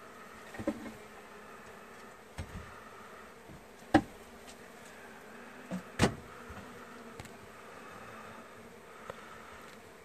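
Honeybee colony buzzing in a steady, wavering drone, stirred up as its comb is cut out of the wall cavity. A few sharp knocks break through it; the loudest come about four and about six seconds in.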